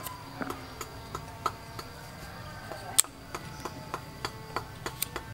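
A cleaver peeling and paring a pumpkin by hand: irregular light clicks and scrapes of the blade on the rind, with one sharper click about three seconds in.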